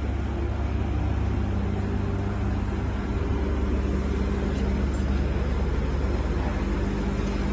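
Cummins diesel engine of a crawler pile driving rig running steadily with an even hum; no hammer blows.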